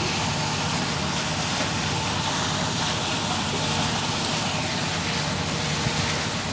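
Steady rushing noise with a low, even hum underneath, unbroken throughout.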